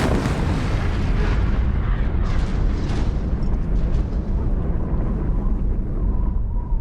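Building collapsing under demolition: a long, heavy rumble of falling debris, with crashes about two to three seconds in, easing off in the high end near the end.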